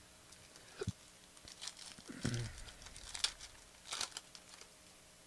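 Shiny foil-plastic wrapper of a Panini Prizm basketball card pack being torn open and crinkled, in irregular crackles with a few sharper tears about three and four seconds in.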